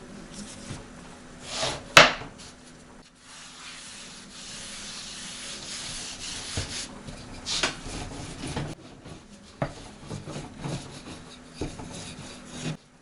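Irregular rubbing and scraping on a wooden surface, with scattered light knocks and one sharp knock about 2 seconds in.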